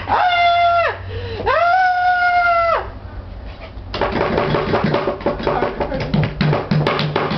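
A person's voice holds two long, high drawn-out wails, each sliding up, holding steady and dropping off at the end. About four seconds in, music with a steady beat starts.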